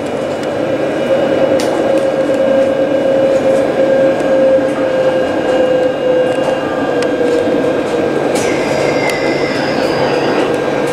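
Alstom Citadis tram heard from inside the cab as it runs along: a steady motor whine that drifts slowly lower over the rolling noise, with scattered clicks. About eight seconds in, the wheels squeal high on the rails for a couple of seconds as the tram takes a curve.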